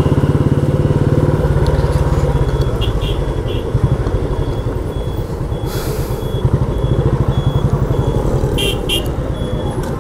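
Motorcycle engine running steadily under way, its rapid firing pulses filling the low end, with traffic around. A brief hiss about six seconds in.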